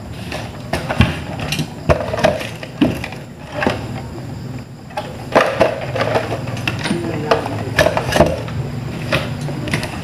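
Plastic parts and wiring being handled on a workbench: irregular clicks, knocks and rattles as an air-conditioner's plastic control box and wire connectors are moved and fitted together.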